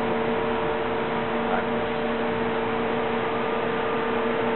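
Steady running noise of factory machinery: a constant hiss with a steady two-note hum, one note an octave above the other.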